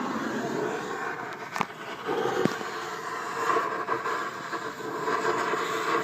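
Welding on the spider gears of a 1997 Jeep Grand Cherokee ZJ's open rear differential to weld it locked: a steady noisy hiss, with a couple of sharp clicks about one and a half and two and a half seconds in.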